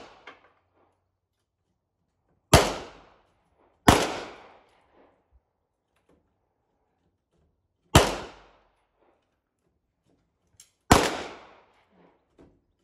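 Four single gunshots at uneven intervals, the first two about a second and a half apart, each cracking sharply and dying away in a short echo.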